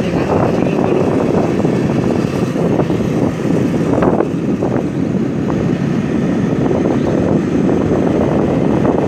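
Steady rush of wind on the microphone over a vehicle in motion, most likely a motorbike being ridden along the road.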